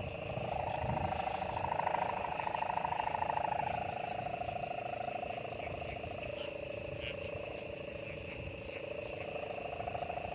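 Kite hummer (sendaren) droning in the wind: a steady buzzing hum whose pitch slowly wavers up and down, rising in the first couple of seconds, dipping about two-thirds of the way through, and climbing again near the end.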